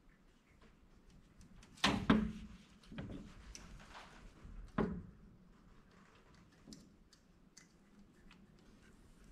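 Clicks and knocks of hands working parts at a Tecumseh small engine's exhaust valve while its clearance is checked: a few light ticks, two sharper knocks about two seconds in, another near the five-second mark.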